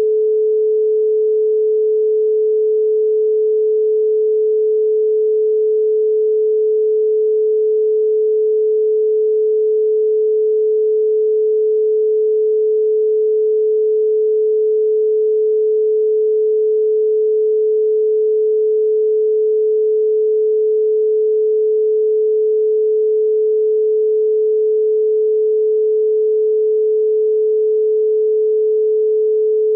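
A steady, unbroken pure sine tone at 432 Hz, one pitch with no overtones, held at a constant level.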